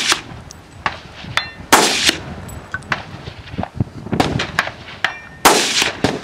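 Gunshots in an irregular string, four loud shots with fainter cracks between them. Some are followed by a brief high ring of steel targets being hit.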